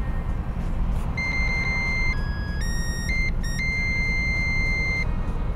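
Electronic beeps from a myenergi Zappi EV charger's buzzer: a long tone, a few short notes stepping up and down in pitch, then a long held tone, over a steady low rumble.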